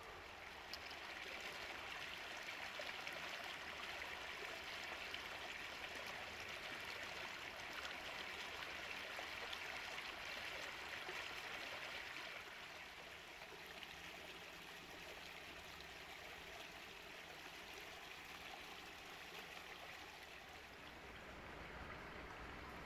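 River water running over rocks in a steady, faint babbling rush, a little softer from about halfway through.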